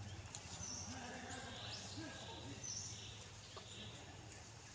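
Long-tailed macaques giving a few soft, short low grunts, with two brief high chirps and a steady low hum in the background.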